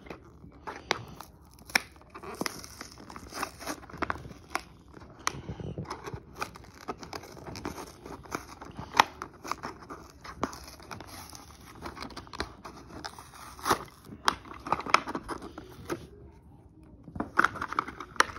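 Toy packaging being torn and pried open: plastic blister and cardboard crinkling and tearing, with many irregular sharp clicks and crackles.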